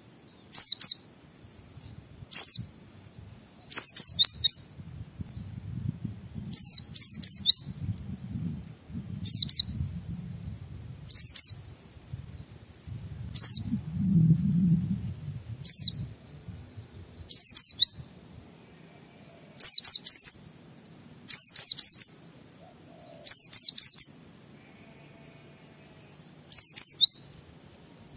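White-eye (pleci) singing in short, high-pitched bursts of quick falling notes, roughly one burst every one to two seconds. A faint low rumble sits underneath through the middle.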